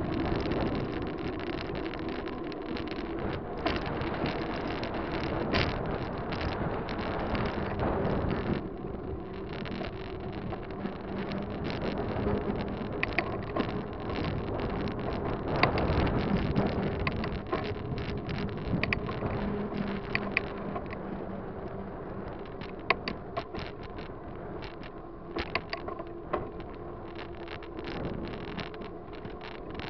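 Wind rushing over the microphone of a camera mounted on a moving bicycle, with the bike's rattles and sharp clicks scattered through it.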